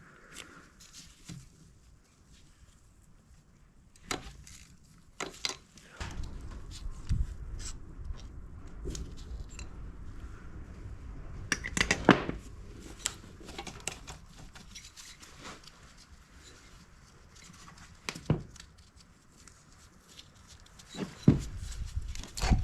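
Metal clinks, taps and knocks of hand tools and engine parts while a small dirt bike's cylinder head is worked loose. Scattered sharp knocks come over a low rumbling of parts being handled from about 6 to 14 seconds in, with a louder cluster near the end.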